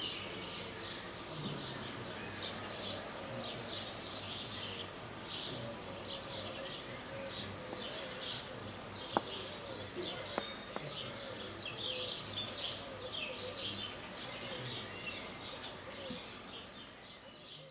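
Small birds chirping in many quick, repeated notes, with a couple of faint sharp clicks a little past halfway. The sound fades out at the very end.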